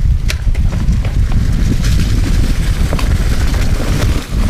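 Mountain bike descending a leaf-covered dirt trail: a steady low rumble of wind on the microphone and tyres on the ground, with scattered sharp clicks and rattles from the bike.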